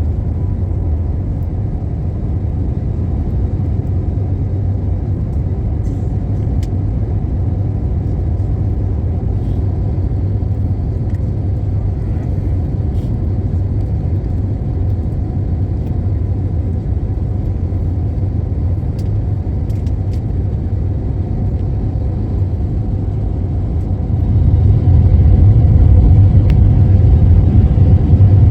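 A steady low rumble with no voices, growing louder about 24 seconds in.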